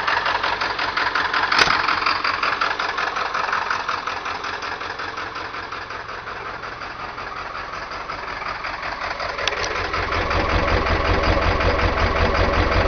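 1997 Ford F-250's 7.3L PowerStroke (International T444E) V8 turbo diesel idling roughly with a steady pulsing note, missing on at least one cylinder because of bad injectors. About ten seconds in it grows louder and deeper.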